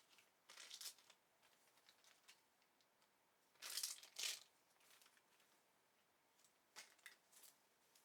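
Packaging being handled: short bursts of rustling and crinkling, the loudest pair about halfway through and fainter ones near the start and toward the end.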